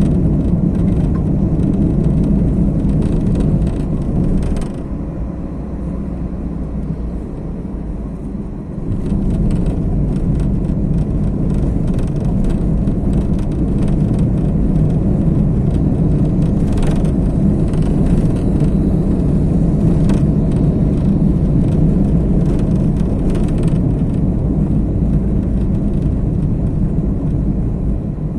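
Car driving: a steady low rumble of engine and road noise, which eases off for a few seconds about five seconds in and then returns.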